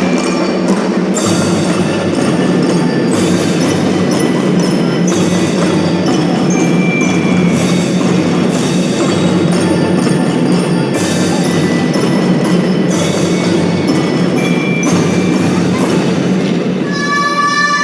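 Kindergarten drum band playing: drums keeping a steady beat under a bright, bell-like mallet melody of glockenspiel-type lyres.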